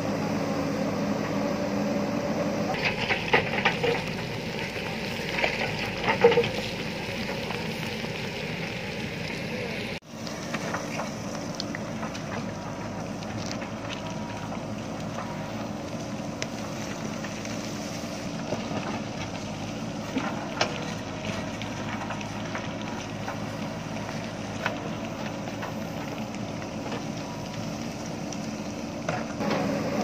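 Diesel engine of a JCB backhoe loader running steadily under load while the backhoe bucket digs and scrapes through rocky soil. Sharp clanks and rattles of the bucket and stones come in the first several seconds, then lighter scattered clicks.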